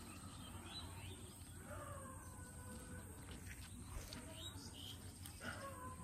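Faint outdoor ambience: a low steady hum with a few faint, short high calls about two seconds in and again near the end.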